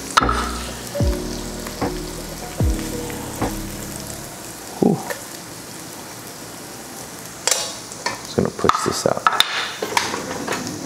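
Sliced onions sizzling in a hot nonstick frying pan as they are stirred with metal tongs. In the second half, a run of sharp clicks and taps is heard as the tongs knock against the pan and plate.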